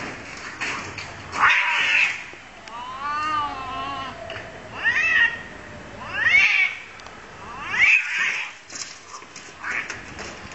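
Two domestic cats fighting, screeching and yowling: a harsh screech, then a long wavering yowl, then three sharp rising-and-falling screams about a second and a half apart, with a few shorter cries near the end.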